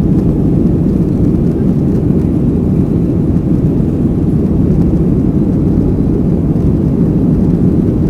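Steady low drone inside the cabin of a Boeing 737-800 in flight: CFM56-7B engine and airflow noise, even and unchanging.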